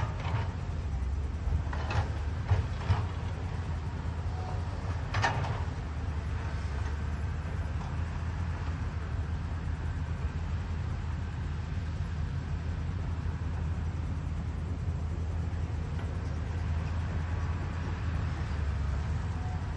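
Caterpillar 320D excavator's diesel engine running steadily with a low rumble, with a few sharp knocks in the first five seconds.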